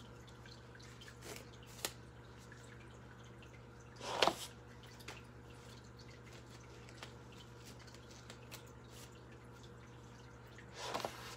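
Water dripping and trickling into a sink over a steady low hum, with a few short louder knocks, the loudest about four seconds in and another near the end.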